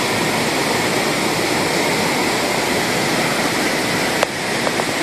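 Steady rushing-water background noise of an indoor water park, with a single click about four seconds in, after which the noise drops slightly.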